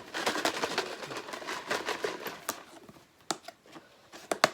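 Folded paper slips being stirred and shaken in a box, a busy rustling and clicking for the first couple of seconds, then a few separate sharp clicks, the loudest near the end.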